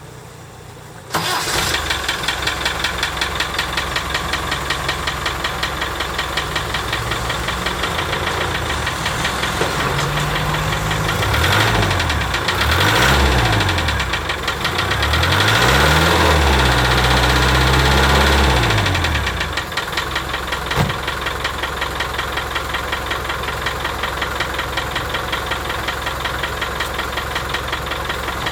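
Land Rover 300Tdi 2.5-litre four-cylinder turbodiesel starting about a second in and idling with a knocking/ticking. It is revved up and down several times midway, then settles back to idle. The knock has persisted with valve clearances checked and the vacuum pump swapped, on a head skimmed beyond the allowed limit.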